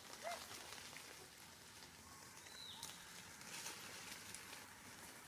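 Faint rustling and crackling of dry leaf litter as macaques move and forage over it, with a brief high chirp about two and a half seconds in.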